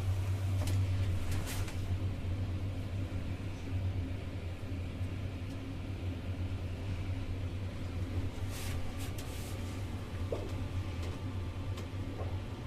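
Steady low hum of an OTIS Gen2 elevator car in motion, heard from inside the car, with a few faint clicks.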